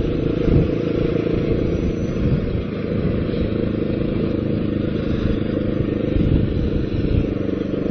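Sport quad bike (ATV) engine running steadily at a cruising pace, heard from the riding quad itself, with no sharp revving.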